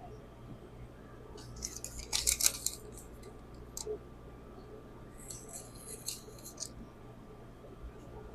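Hard clicking and scraping of a knife and whetstone being handled, in two short bursts: the loudest about two seconds in, another about five seconds in, with a single click between them.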